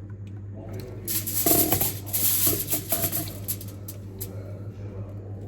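Slime being squeezed and kneaded by hand: a burst of wet, sticky crackling from about one to three and a half seconds in, then a few faint clicks, over a steady low hum.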